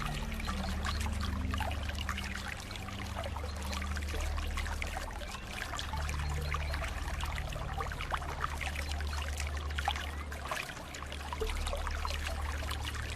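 Flowing water trickling and splashing steadily, over soft, sustained low music notes that change every few seconds.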